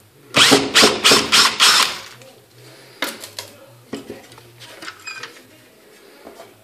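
Cordless drill backing out a screw from a letterbox, heard as a loud, pulsing run of about five bursts over a second and a half. A few clicks and knocks follow as the letterbox's inner section is lifted away.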